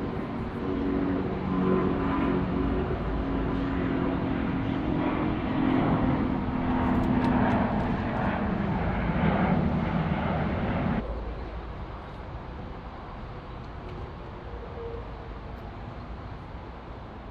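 Large jet airliner's engines passing close by: a loud rush of engine noise with a steady droning hum. It cuts off abruptly about eleven seconds in, leaving a fainter low rumble.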